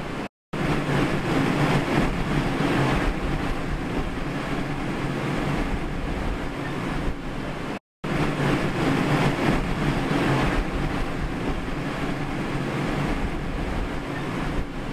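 Steady engine rumble with wind noise, cutting out twice for a moment.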